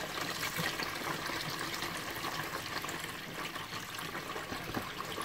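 Kitchen tap running into a plastic basin of water in a steel sink, with small splashes as a hand moves packs of frozen mussels around in the water.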